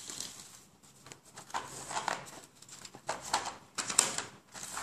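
Plastic felt-tip pens clattering as they are picked up by hand, then cardboard boxes of colour pencils set down on a hard stone floor: a string of light clicks, knocks and rustles, the sharpest about four seconds in.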